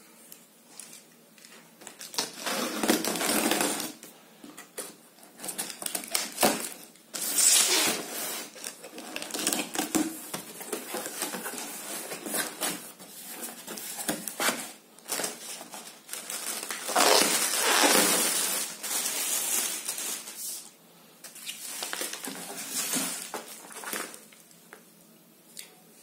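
A cardboard shipping box is opened by hand: packing tape pulled off, flaps pushed back, and plastic bags and bubble wrap handled, rustling and crinkling. It comes in bursts of a few seconds with quieter pauses between.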